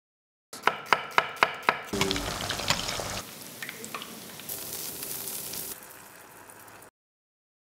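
About five quick knife chops in a row, then food frying in hot oil: a loud sizzle and bubbling that drops to a quieter sizzle in steps, cutting off abruptly near the end.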